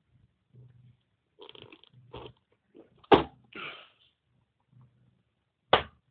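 Plastic tiffin box being handled: its snap-lock lid clips give two sharp clicks, about three seconds in and again near the end, amid short scrapes and rustles of plastic, over a faint low hum that comes and goes.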